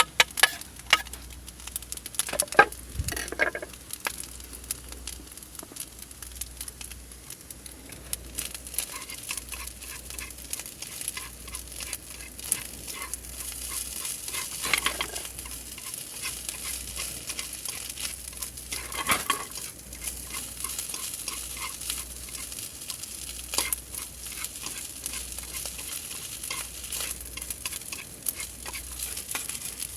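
Food sizzling as it fries in a pan, with scattered clicks and scrapes of stirring.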